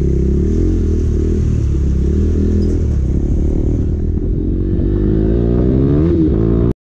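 KTM 390 Duke's single-cylinder engine pulling away and accelerating, its note climbing over the last couple of seconds as road speed rises. The sound cuts off abruptly just before the end.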